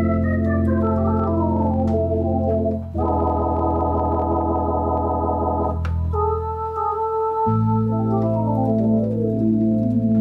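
Gulbransen Rialto II electronic theatre organ playing sustained chords over low held bass notes, with a falling run of notes early on and another near the end, and a wavering vibrato chord in the middle. A stop tab clicks about six seconds in as the registration changes to a new voice.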